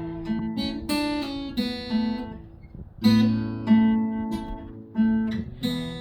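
Acoustic guitar fingerpicked in open-position chords, with individual notes and chord strikes ringing over each other in a steady pattern and a brief softer lull about halfway through.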